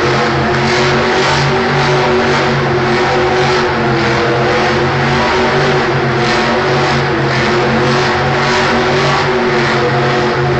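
Monster truck's supercharged V8 held at high revs while spinning donuts, its note swelling and fading about twice a second as the truck turns.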